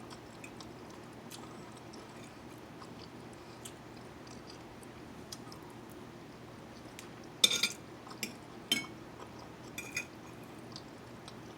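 A person eating: quiet chewing, with a few sharp clicks of utensils and dishes, the loudest about seven and a half seconds in and three more over the next few seconds.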